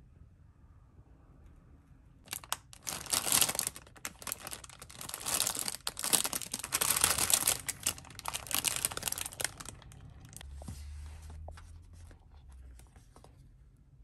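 Plastic packaging crinkling loudly as it is handled, in a run of crackles starting about two seconds in, then fading to a fainter rustle for the last few seconds.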